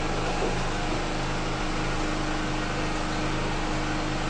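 Steady mechanical hum with an even hiss behind it.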